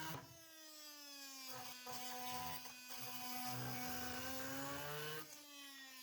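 Brushless Milwaukee M18 Fuel oscillating multi-tool running with a wood-cutting blade sawing into lumber: a steady motor whine with a buzzing cutting chatter underneath. The chatter eases and the whine lifts slightly just after the start and again about five seconds in, as the load on the blade lets up.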